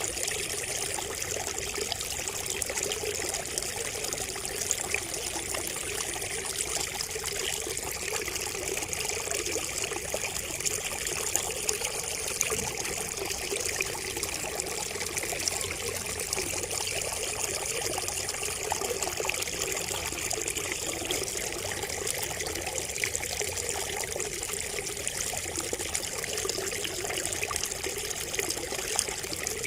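Water trickling and splashing steadily from a bamboo spout, with a continuous stream of small droplet ticks.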